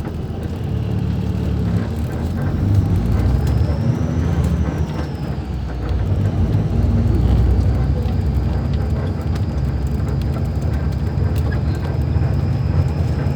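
Diesel engine of a Mascarello Roma M4 bus on an Iveco chassis, running steadily. The engine note swells about three seconds in and again about six seconds in, and a faint high whine rises and falls a few seconds in.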